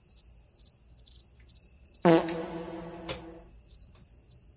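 Cricket-chirping sound effect, a steady high chirp pulsing about three times a second, used as the comic 'crickets' gag for an awkward silence. About two seconds in, a single low held note with overtones sounds for about a second and a half.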